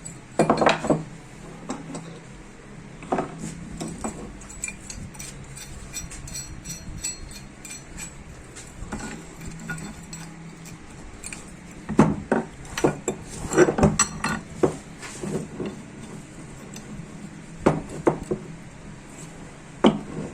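Metal tools and steering-rack parts clinking and clanking against each other in scattered knocks. There is a burst about half a second in, a busy run of clanks in the middle-late part, and a couple of sharp clanks near the end.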